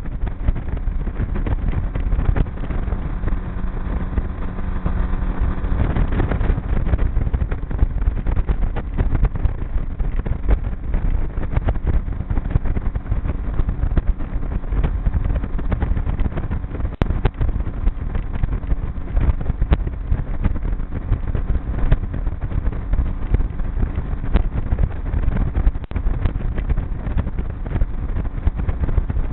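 Outboard motor driving a G3 V167 aluminium boat along at a steady speed: a continuous engine drone mixed with wind noise on the microphone.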